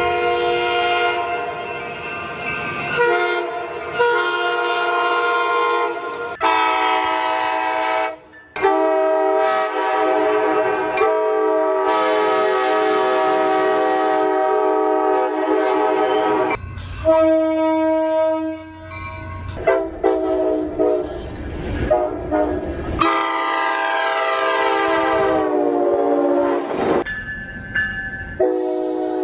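Coaster commuter-train horns sounding a series of long, loud chord blasts, several notes at once, with abrupt cuts from one recording to the next. In one blast near the end the chord falls in pitch as the train passes.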